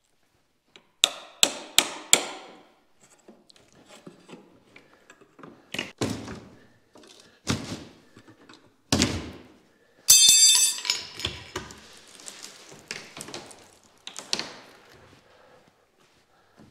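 Sharp snaps of packing strapping being cut with a multi-tool, then heavy knocks on a plywood crate, a loud metallic clang that rings on briefly about ten seconds in, and scattered knocks and rustling as the plywood lid is worked loose and lifted.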